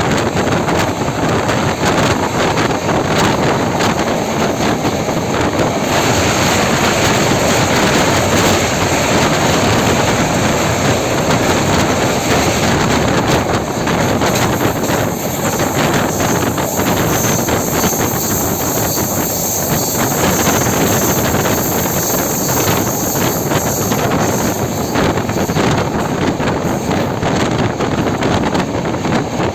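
Moving Indian Railways passenger train, with wind rushing over the microphone and the steady rumble of the running train underneath.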